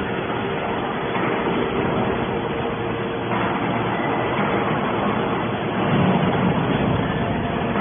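Scrap metal baler running: a steady machine noise with a faint steady whine, swelling slightly about six seconds in.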